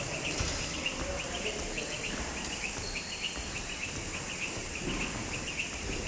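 Speed rope whipping round in fast double-unders: a quick, even chirp about four times a second.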